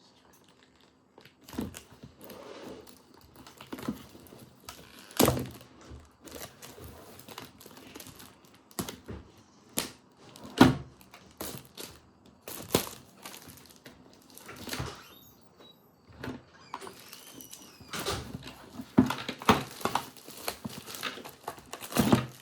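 Packaging being handled and opened: crinkling and rustling, with many irregular sharp clicks and knocks as small plastic items are handled.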